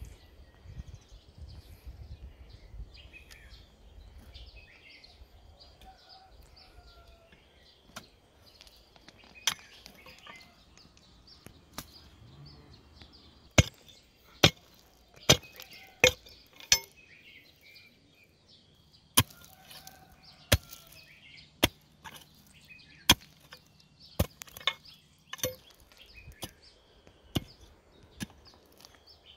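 Pickaxe striking dry, stony ground in a series of sharp blows, roughly one a second, beginning about halfway through. Small birds chirp faintly throughout.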